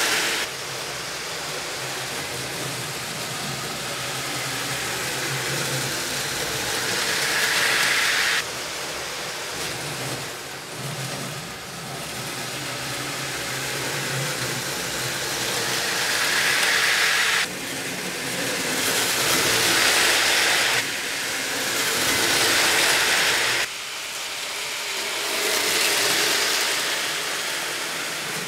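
HO-scale slot-car big rigs running on a plastic slot-car track. The small electric motors and running gear go louder as a rig passes close and fall away again, several times over, with a few sudden jumps in level.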